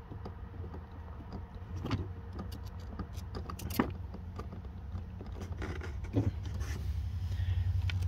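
Small plastic clicks and taps of hands pushing a load resistor's wire into a Posi-Tap wire connector and screwing its cap back on, with a few sharper clicks about two, four and six seconds in, over a steady low hum.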